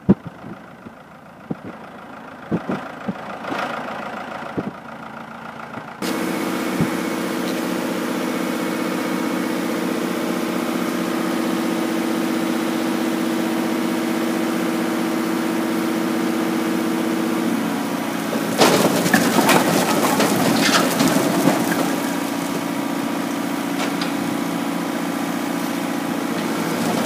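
Fiat 550 tractor's diesel engine running steadily under load as the trailer bed tips up, with a few knocks before the engine sound comes in. About 18 seconds in, a load of firewood logs starts sliding and tumbling off the tipped trailer in a rough clattering rush over the engine.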